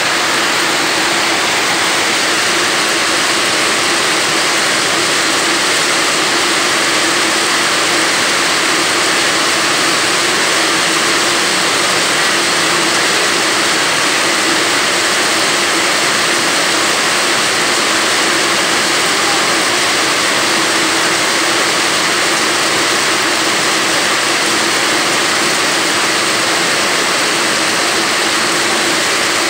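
Steady, loud hiss of rain falling on the bus terminal's metal canopy roof and the wet pavement, unbroken throughout, with a faint steady hum underneath.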